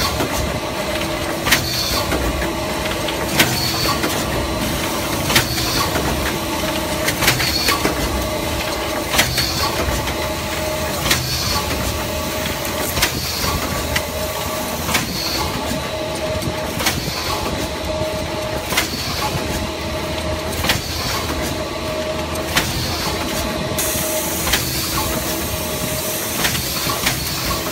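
LX3122 in-mould-cut thermoforming machine running, forming and steel-rule-knife trimming 0.2 mm PET trays: a sharp clack about every two seconds, each with a brief hiss, over a steady machine hum. The two-second rhythm is the machine's cycle of 30 strokes a minute.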